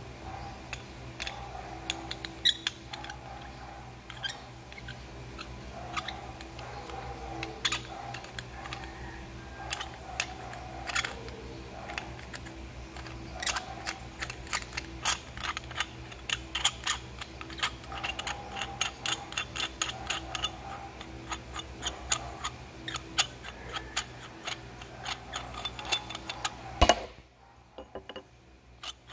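Metal suppressor parts being handled and fitted together: a threaded inner tube and an outer sleeve give off repeated light clicks and taps over a steady low hum. One louder click comes near the end, after which the hum briefly drops away.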